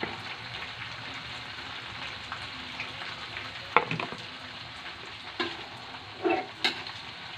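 Bean sprouts and dried anchovies sizzling steadily in a hot wok, with a few sharp clicks and scrapes of a metal spatula against the pan about halfway through and near the end.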